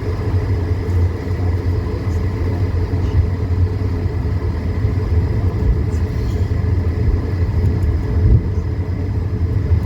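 Airbus A220-300 cabin during taxi: a steady low rumble from the landing gear rolling over the taxiway and the airframe, with the Pratt & Whitney PW1524G geared turbofans running at low taxi thrust as a faint steady whine.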